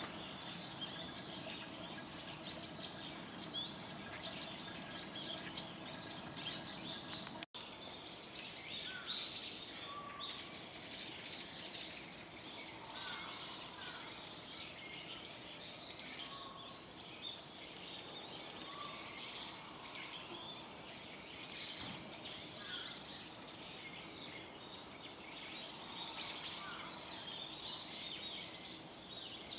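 Many small birds chirping and twittering all around, with a steady faint hum underneath. The sound drops out for an instant about seven and a half seconds in.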